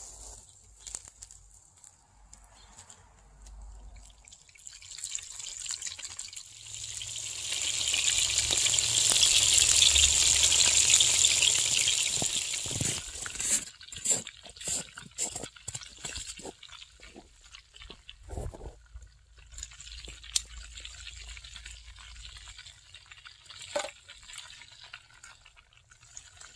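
Breaded rabbit pieces frying in hot oil in a cast-iron Dutch oven: the oil sizzles, swelling to a loud hiss about eight to twelve seconds in, then settles into crackling and popping with a few sharp clicks.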